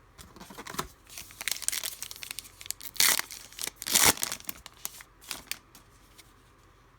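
Trading-card pack wrapper being torn open and crinkled, a cluster of rips and rustles with the two loudest tears about three and four seconds in.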